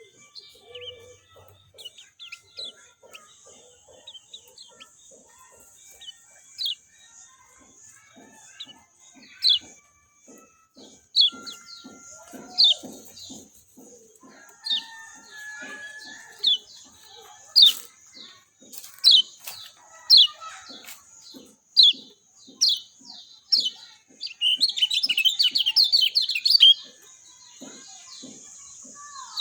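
Kecial kuning songbird calling: sharp, high, falling notes repeated about once a second, breaking into a fast burst of chatter near the end, over a steady high hiss.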